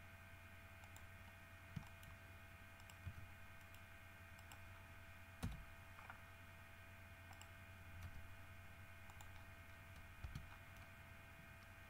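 Faint, scattered clicks of a computer mouse and keyboard, a handful of separate clicks with the loudest about halfway through and a quick pair near the end, over a faint steady hum.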